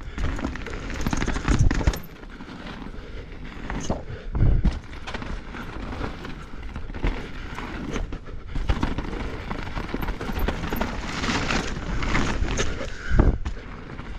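Norco Fluid full-suspension mountain bike riding down a dirt trail: tyres rolling on dirt, with the chain and parts rattling all the way. A few heavy thumps come where the bike hits bumps.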